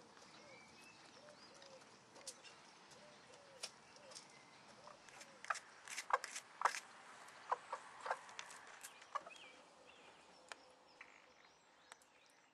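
Hen clucking softly, a steady run of low clucks about two a second, then a handful of short, sharper sounds in the middle.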